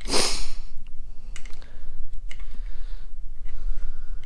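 Light clicks and ticks of a pry bar gently levering the clipped-in plastic wiring-harness plug out of an Allison 1000 transmission case, with a short scrape at the very start. A steady low hum runs underneath.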